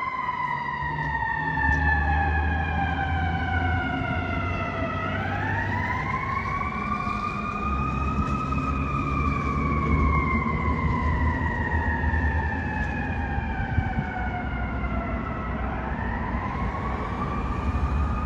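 Fire truck siren in a slow wail: the pitch sinks over about five seconds, sweeps quickly back up, falls slowly again for about seven seconds and starts another rise near the end. A low drone comes and goes beneath it.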